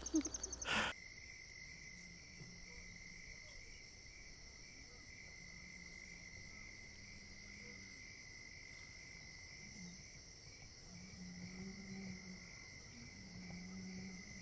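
Steady chorus of crickets, with cows across the lake lowing faintly in long, low calls several times.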